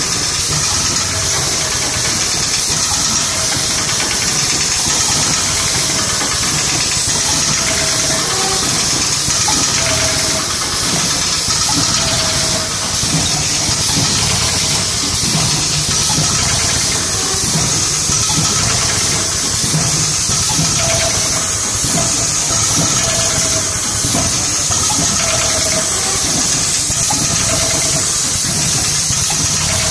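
A row of automatic vertical powder stick-pack packaging machines running together: a steady mechanical hum under a constant hiss, with faint short tones recurring every second or two.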